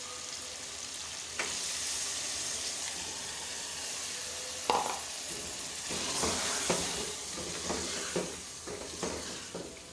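Chicken masala and freshly added chopped capsicum sizzling in an aluminium pressure cooker pot, stirred with a wooden spoon that knocks against the pot several times in the second half.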